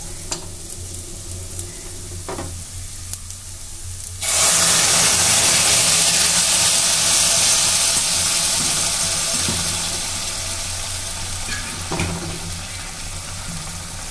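Hot water poured into a pressure cooker of rice just fried in oil: a sudden loud sizzling hiss starts about four seconds in and slowly dies away over the next several seconds, with a ladle clacking against the pot now and then.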